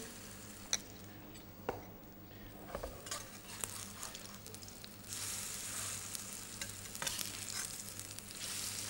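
Grated potato fritters sizzling in shallow hot oil in a fry pan, with a few light clicks of a metal utensil against the pan in the first few seconds. The sizzling grows louder about five seconds in.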